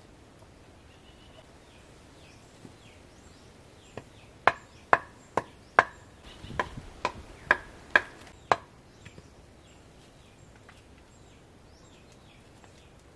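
Machete (bolo) chopping into wood: a run of about nine sharp strikes, roughly two a second, each with a short ring.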